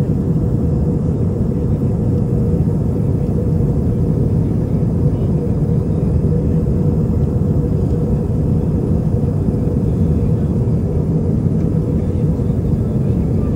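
Airliner cabin noise in cruise: the steady low rumble of the engines and airflow heard from a passenger seat, with a faint steady hum over it.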